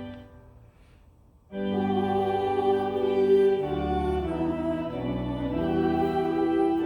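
Church organ music: a held chord dies away, and after a short pause the organ comes back in about a second and a half later with sustained chords over a moving bass line.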